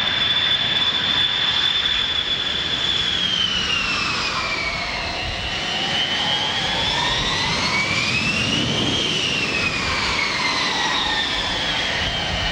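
Boeing 707 (CC-137) Pratt & Whitney JT3D turbofan jet engines whining as the jetliner taxis past on the apron. A steady high whine falls away after about three seconds, climbs to a peak about nine seconds in, then falls again, over a constant jet rush.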